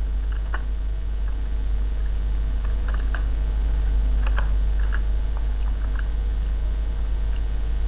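Computer keyboard keys clicking irregularly as a short command is typed, over a steady low hum.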